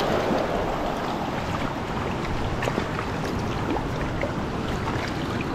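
Steady rush of a small mountain trout stream's flowing water, with a few faint ticks scattered through it.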